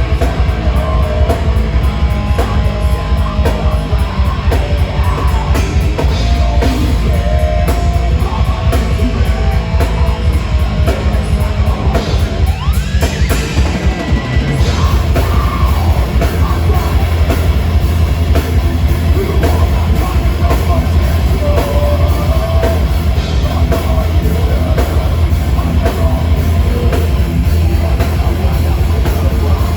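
Heavy metal band playing live, with guitars and a drum kit. About halfway through, the music shifts: a rising glide, then a heavier low end.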